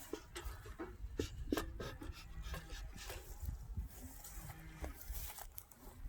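Irregular clicks, knocks and scrapes of beehive equipment being handled during a hive inspection, over a low rumble.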